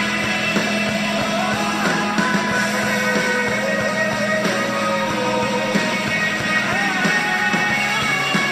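Rock music in an instrumental passage between sung lines: a full band backing under a melodic lead line that slides and bends between notes.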